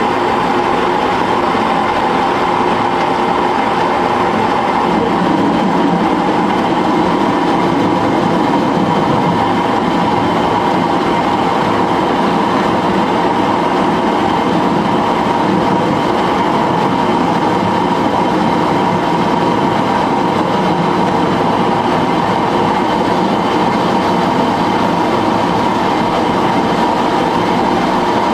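Small manual metal lathe running steadily at low speed with the half nut engaged, its gears and lead screw driving the carriage while a threading tool cuts a coarse tapered thread in hot-rolled mild steel bar.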